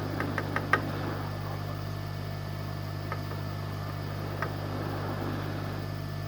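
Steady low electrical hum from bench equipment, with a few light, sharp clicks of small tools on the circuit board: four quick ones in the first second, then two more, about 3 and 4.5 seconds in.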